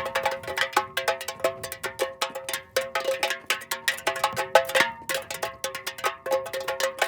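Metal soda can rolling along the ground: rapid, irregular clicks and rattles, each with a short metallic ring.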